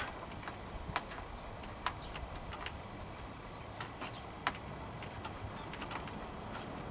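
Scattered light clicks and ticks at irregular intervals as a steel coat-hanger hook and wiring harness are fished under a motorcycle's fuel tank, knocking against the tank and bodywork, over a faint steady low background noise.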